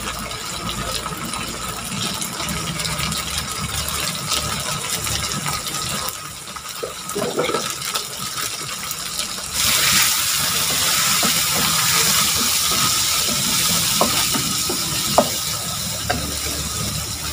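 Beef and soy-sauce mixture sizzling and bubbling in a hot wok, as a steady hiss that gets suddenly louder and brighter about ten seconds in. A wooden spatula knocks lightly against the pan a few times near the end.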